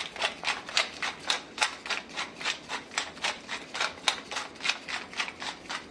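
Hand-twisted pepper mill grinding black pepper: a steady run of rapid clicks, about four to five a second.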